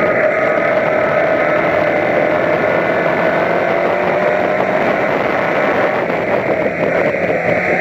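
Toyota Corolla Levin race car's engine running steadily under power at racing speed, with continuous road and wind noise, heard onboard.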